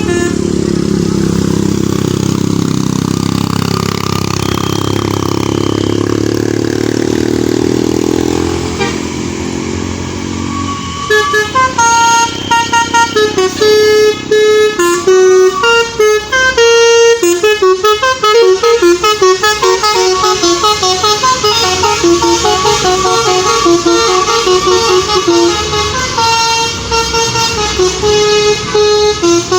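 An engine runs for about the first ten seconds. About eleven seconds in, a bus's telolet basuri multi-tone horn with a DAV module starts playing a quick melody of short, stepped notes, and keeps it going.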